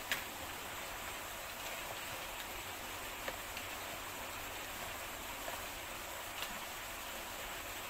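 Steady background hiss, with a few faint clicks as scuba regulator hoses are handled.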